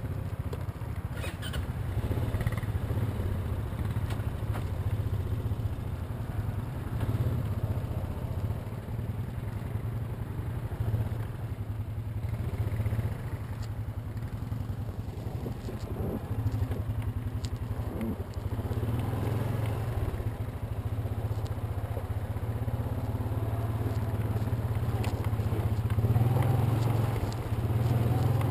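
Honda ATV engine running steadily at low speed as it crawls along a rough trail, growing a little louder near the end.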